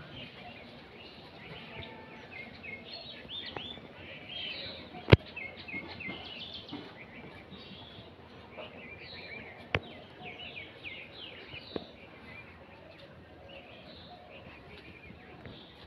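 Small birds chirping and calling in a busy chorus, with three sharp cracks: the loudest about five seconds in, two fainter ones near ten and twelve seconds.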